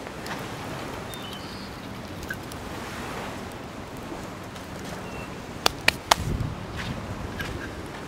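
Steady wind and lake waves as a continuous hiss, with a few faint pops and three sharp clicks in quick succession about six seconds in, the loudest sounds here.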